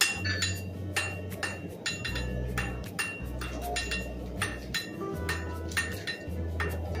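Blacksmith's hammers striking metal on anvils, a quick irregular run of blows with a bright ring after each strike.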